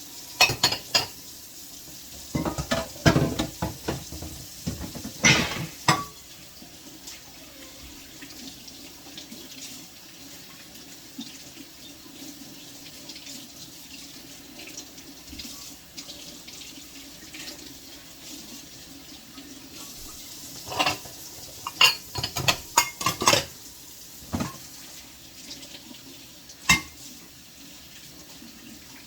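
Tap water running into a kitchen sink while dishes are handled and rinsed, with clusters of sharp clinks and clatters of crockery and cutlery, one group early on and another about two-thirds of the way through.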